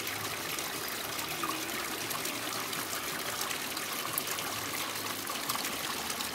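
Creek water running steadily where it spills under a log crossing, an even rushing trickle.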